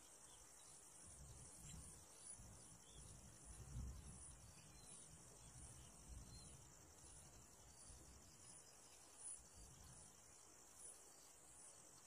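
Near silence: a faint, steady high insect trill with regular pulses, a little faster than once a second, over a faint low rumble.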